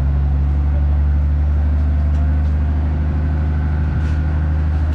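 Mobile crane's diesel engine running steadily as it hoists a steel girder, a loud, even low drone.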